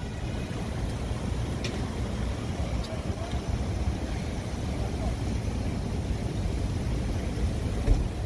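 Street traffic: a steady low rumble of passing cars, with a short thump near the end.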